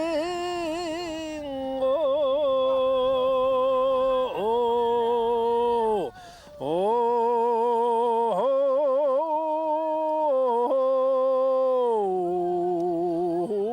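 A man singing a Buddhist mantra unaccompanied, sung to racehorses to give them speed: long held notes with trilling ornaments, broken by short pauses for breath, and dropping lower in pitch near the end.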